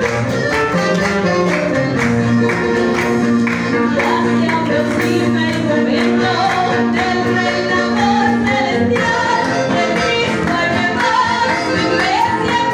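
Live worship music in a Latin American style: acoustic guitars strumming a steady rhythm over keyboard, with a woman singing into a microphone.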